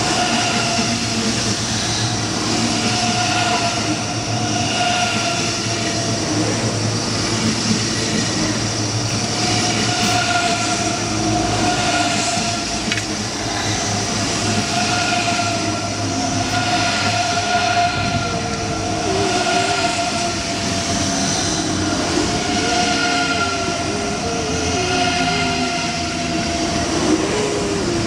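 ICE 3 high-speed electric train moving along the platform close by: a steady whine from its traction equipment at several pitches over the rumble of the wheels. A wavering squeal from the running gear joins in during the second half.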